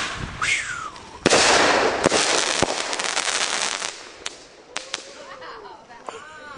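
A mortar-style firework shell bursts with a loud bang about a second in, followed by a couple of seconds of dense crackling that dies away.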